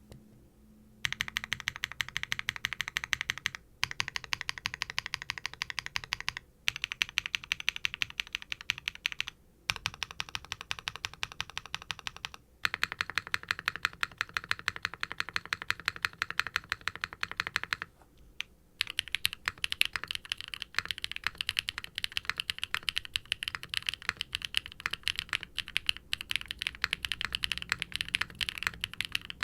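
Fast typing on a Qwertykeys QK60 R3 mechanical keyboard with Wingtree BM-11 tactile switches, a POM plate and double-shot ABS keycaps: runs of deep, clacky keystrokes. The runs break off in short pauses about a second in and then every few seconds.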